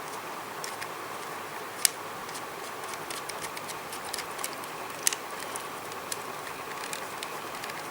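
Small sharp clicks and taps of a camera quick release mount being handled and fitted onto a hand grip, over a steady background hiss; the loudest click comes a little under two seconds in, another about five seconds in.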